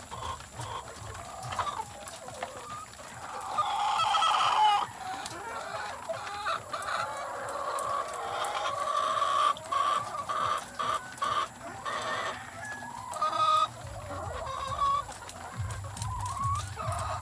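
A flock of caged laying hens clucking and calling over one another, with louder calls about four seconds in and again near thirteen seconds.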